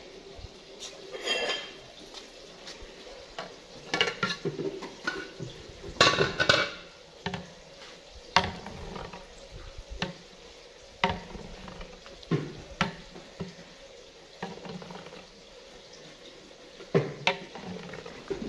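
A ladle clinks and scrapes irregularly against a steel cooking pot as chopped moringa (sohanjna) is stirred over a wood fire, over a faint steady sizzle.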